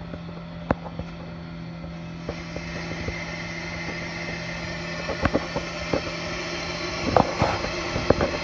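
Pro-Cut on-car brake lathe running, spinning a brake rotor damped by clip-on silencing pads while its cutting bits resurface it, with a steady motor hum. A hiss grows from about two seconds in, and several sharp clicks come through.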